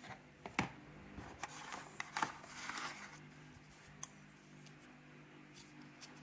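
Handling of phone-box packaging as the wrapped earphones are taken out of the tray: a few sharp clicks about half a second in and around two seconds, a short rustle of the wrapping just after, and one more click around four seconds.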